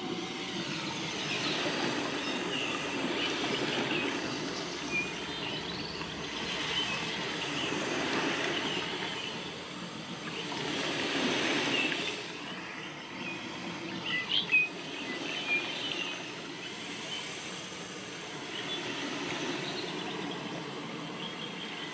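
Continuous background noise that swells and fades every few seconds, with a few faint high chirps and a quick cluster of three sharp clicks a little past the middle.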